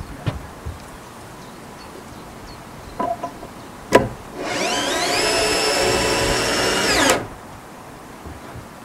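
Cordless drill driving a screw into a wooden plank. There is a sharp knock about four seconds in, then the motor whines up to speed, runs steadily for about two and a half seconds and stops abruptly.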